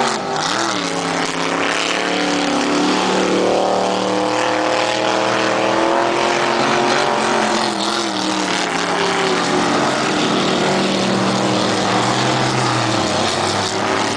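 Racing powerboat engines running at speed as the boats pass along the course, several engine notes overlapping, their pitch dipping just after the start and sliding down again near the end.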